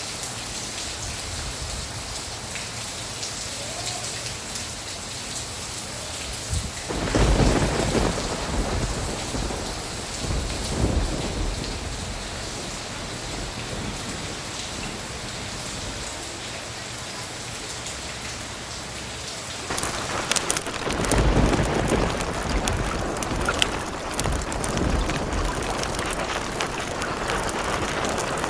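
Steady rain falling, with two rolls of thunder: one rumbles in about seven seconds in and fades away, and a second breaks in sharply about twenty seconds in and rumbles on.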